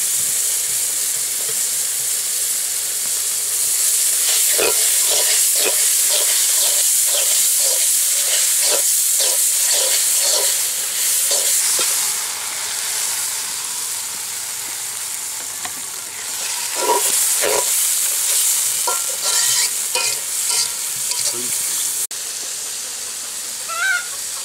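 Green chillies and onions sizzling in a hot aluminium wok while a metal spatula stirs and scrapes the pan in runs of short strokes. About halfway through, water poured into the pan brings the sizzle down to a softer hiss before the stirring starts again.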